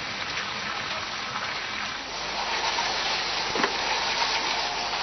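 Fire hose spraying a jet of water onto smouldering wreckage: a steady rushing noise, with a single short knock about three and a half seconds in.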